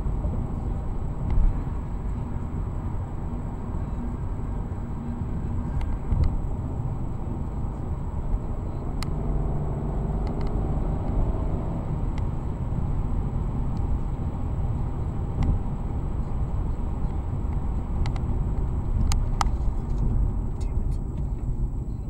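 Steady road and tyre rumble inside a car's cabin at highway speed, about 72 mph, heard through the dash cam's microphone, with a few faint sharp clicks scattered through it.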